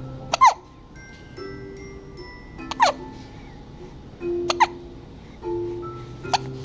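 A person hiccuping four times, about every two seconds, each hiccup a short sharp squeak that drops in pitch, over background music.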